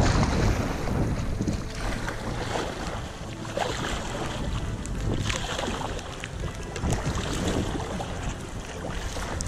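Canoe paddle strokes and water splashing around the hull on choppy water, with wind rumbling on the microphone, strongest at the start.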